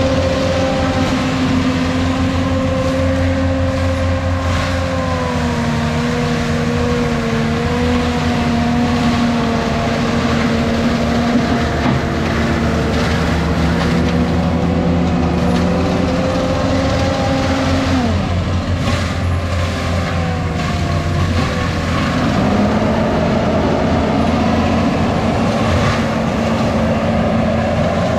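ASV RT-120 Forestry track loader running a Fecon forestry mulching head at full speed, a steady loud engine and drum whine. The pitch sags a few times as the head grinds into the ground, dropping sharply about two-thirds of the way through and recovering a few seconds later.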